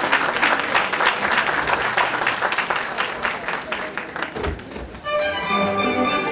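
Audience applauding. About five seconds in, orchestral music with strings starts.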